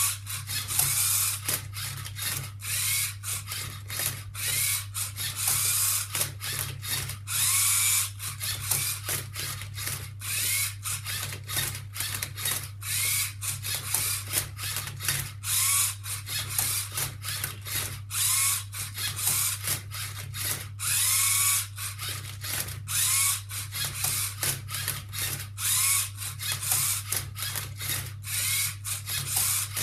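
Lego Mindstorms EV3 MindCub3r robot solving a Rubik's Cube: its motors whine in short rising bursts, one every second or two, as the turntable twists the cube's layers and the flipper arm tips it over, with clicking and clattering of the plastic parts and cube.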